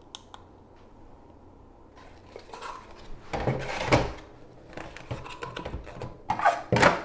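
Plastic scraping and clunks as the cylindrical HEPA filter is handled and fitted back into a Levoit Core 300 air purifier and its round bottom cover is turned by hand. A couple of faint clicks first, then the handling noise starts about two and a half seconds in, with the loudest clunks near the end.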